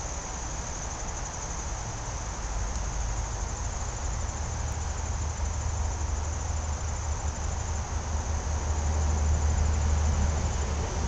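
Steady high-pitched insect chorus, a continuous pulsing trill, over a low rumble that grows louder in the second half.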